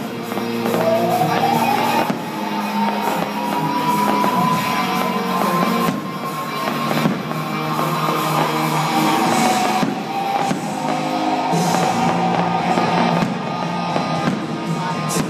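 Rock music with electric guitar and singing plays throughout, while firework shells burst with sharp bangs every few seconds.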